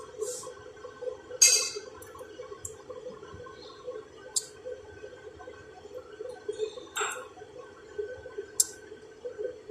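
Pot of chicken and spiced vegetables cooking on the stove with a steady bubbling, and a few sharp clinks of a spoon against the pot.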